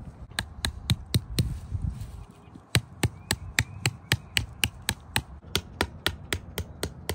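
Hammer driving a metal nail through plastic lawn edging into the ground: sharp, rapid blows, a short run of strikes, a pause, then steady hammering at about four blows a second.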